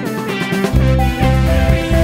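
Background music: a guitar tune, with a deep bass beat coming in under it about three quarters of a second in.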